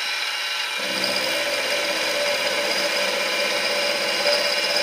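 Benchtop milling machine running, its end mill cutting a metal shaft, a steady machining noise with a lower hum coming in about a second in.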